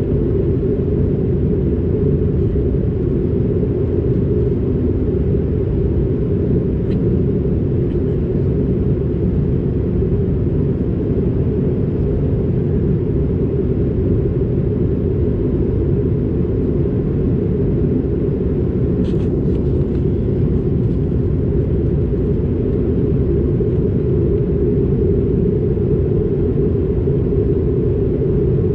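Steady, loud cabin rumble of an Airbus A220-300 in flight: engine and airflow noise from its Pratt & Whitney PW1500G geared turbofans, heard from a passenger seat.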